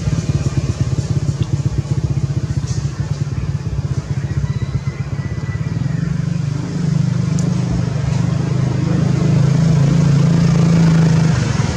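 A small engine, like a motorbike's, running steadily with a fast low pulse, growing louder about seven seconds in.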